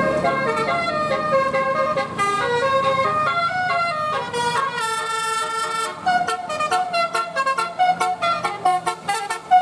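Indonesian bus's "telolet" multi-tone musical air horn playing a tune: a run of stepped horn notes, turning into short, choppy notes about six seconds in.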